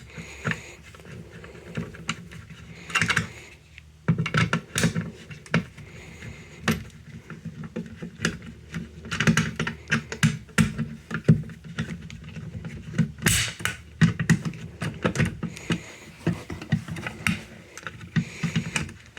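Irregular clicks, knocks and rattling from hands working a fire alarm pull station to reset it.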